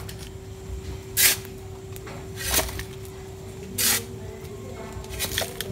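Metal shovel scooping sand and tipping it into a plastic toy dump truck: four short gritty swishes about a second and a half apart.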